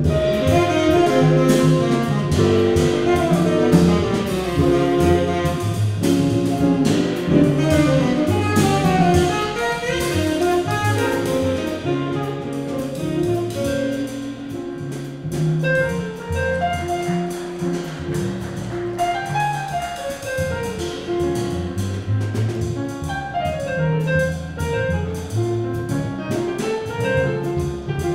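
Jazz quintet playing live: saxophone, electric guitar, grand piano, upright bass and drums.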